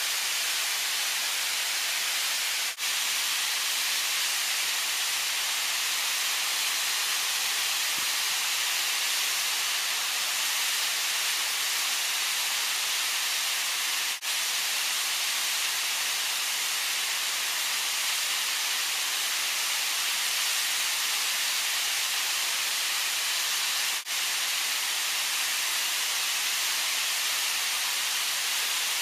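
Mountain stream rushing over rocks in a steady, even hiss, dipping very briefly three times.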